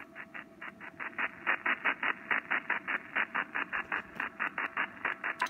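Icom IC-7300 HF receiver's audio on upper sideband, pulsing with rapid bursts of noise, about six a second. It is powerline-networking interference from a TP-Link TL-PA211 Ethernet-over-power adapter carrying a stream of IP camera data, which wipes out HF reception.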